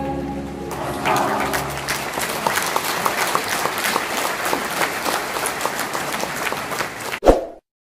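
A choir's last sung chord ends in the first second, then a crowd applauds with many hands clapping. The applause ends in one sharp knock a little after seven seconds, and the sound cuts off abruptly.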